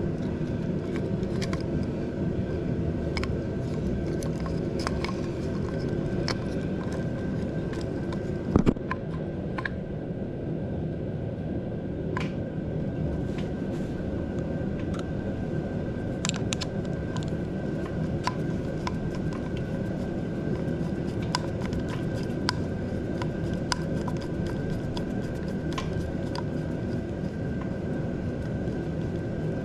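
Scattered small clicks and clinks of hands working on a motorcycle's throttle cable and carburetor linkage, with one louder knock about eight and a half seconds in, over a steady low rumble and a faint steady high tone.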